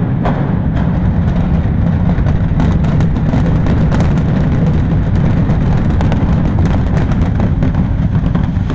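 Explosive demolition of a brick high-rise: a rapid string of sharp cracks from the charges, starting about two and a half seconds in, over a steady low rumble.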